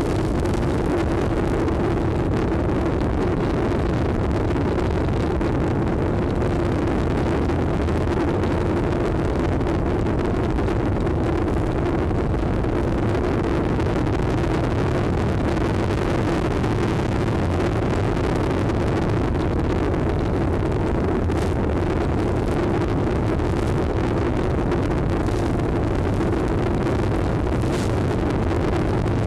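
Steady rushing noise with a constant low hum from an FPV model plane's onboard audio feed, while the plane glides with its motor drawing almost no current.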